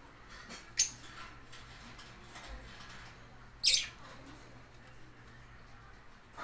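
Lovebird giving two short, shrill, high-pitched squeaks about three seconds apart, the second a little longer and falling in pitch, from a pair that is mating.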